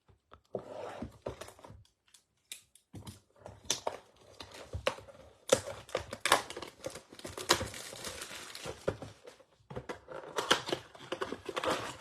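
Plastic wrapping crinkling and tearing with irregular clicks and taps as a sealed trading-card box is unwrapped and opened, with a short pause a couple of seconds in.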